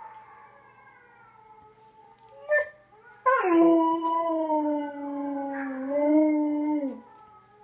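A dog gives a short yip, then about a second later one long howl lasting three to four seconds that starts a little high, settles and sinks slightly, and drops away at the end.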